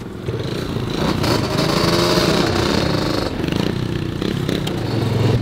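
Small dirt bike engines revving, the pitch rising and falling, then a steadier engine note that grows louder near the end.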